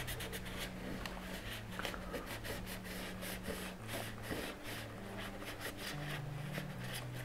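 Paper towel rubbed and wiped over an epoxy-coated plywood joint, a quick run of soft scratchy strokes several times a second, as wet epoxy squeeze-out is wiped off.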